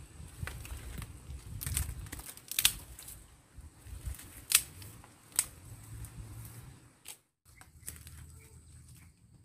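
A handful of sharp clicks or snaps, irregularly spaced and the loudest about halfway through, over low rustling handling noise. The sound drops out briefly near the end.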